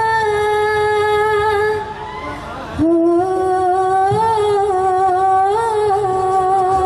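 A woman singing into a handheld microphone, holding two long notes: the first for about two seconds, then after a short break a lower one held for about four seconds with a slight waver.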